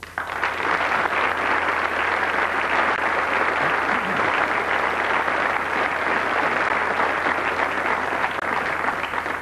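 Studio audience applauding steadily, starting abruptly and tapering off near the end.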